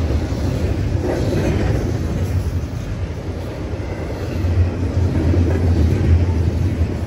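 Double-stack container well cars of a freight train rolling past at close range: a steady, heavy low rumble of steel wheels on the rails, easing a little around the middle and building again in the second half.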